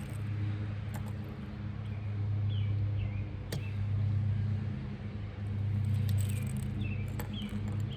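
A steady low mechanical hum, like an engine running, that swells and eases. A few sharp clicks and some faint, short high chirps over it.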